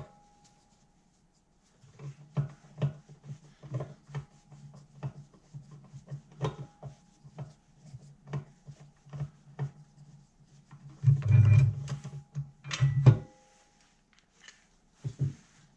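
A hand screwdriver working a screw loose on a bandsaw's roller-bearing blade-guide bracket: irregular metal clicks and scraping, with louder clatter around eleven and thirteen seconds in as the guide assembly is handled and comes free.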